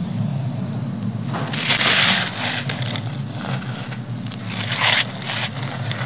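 Dry, gritty lumps crushed and crumbled in the hands, crunching in two main bursts, about a second and a half in and again near five seconds, with grit falling into a clay pot. A low steady hum runs underneath.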